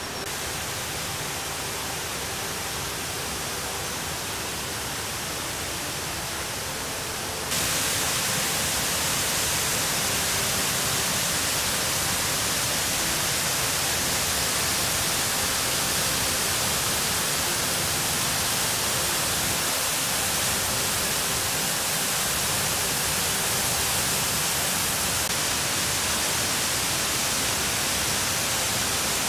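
Steady rushing of a waterfall, water pouring over rock into a pool. About seven seconds in it steps up louder and brighter, as the tall main falls plunging into the gorge takes over.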